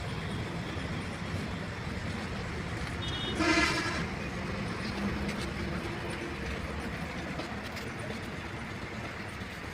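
Steady outdoor traffic and site background noise, cut through by one short vehicle horn toot about three and a half seconds in.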